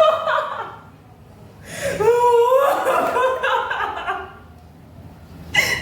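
Women laughing and gasping in bursts, their voices sliding up and down in pitch, with a sharp high cry near the end.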